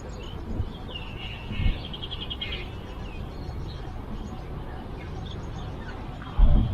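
Birds chirping over a steady outdoor background, with a quick run of repeated high chirps between about one and three seconds in. Brief low thumps early on, and a louder low rumble starts near the end.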